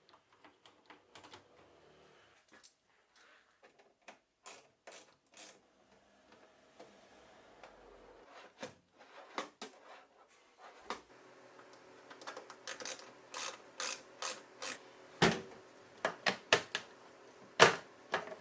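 Clicks and knocks of hand work on an aluminium suitcase's parts during assembly. They are sparse at first and grow denser and louder in the second half, over a faint steady hum.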